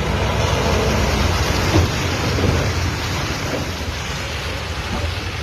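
Heavy truck diesel engine running hard on a muddy dirt climb, a low steady rumble under a loud, even rushing noise.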